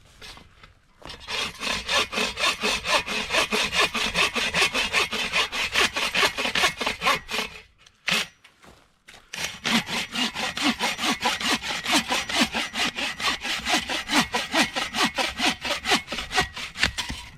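Hand saw cutting through wood with quick, regular back-and-forth strokes, in two long bouts with a short pause and a single sharp knock about eight seconds in.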